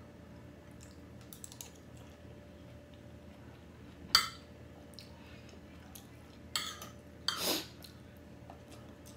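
Metal spoon and fork clinking and scraping on a dinner plate while eating, with one sharp clink about four seconds in and a few softer scrapes later, over a faint steady hum.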